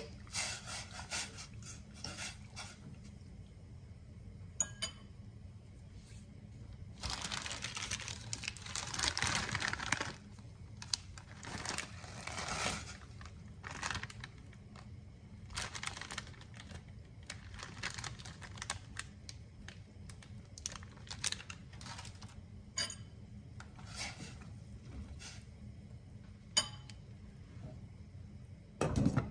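Kitchen handling sounds: a plastic noodle packet crinkling and tearing for a few seconds, with scattered light clicks and clinks against a stainless steel pot, over a low steady hum.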